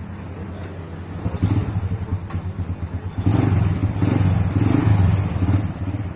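Motorcycle engine running and being revved on a test ride after a carburetor service. It gets louder about a second in and again about three seconds in.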